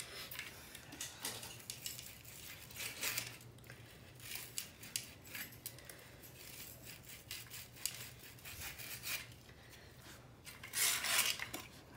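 Refrigerator condenser tube ends being sanded by hand: short, quick rubbing strokes of abrasive on metal, loudest near the end. The tube ends are being cleaned bright for brazing.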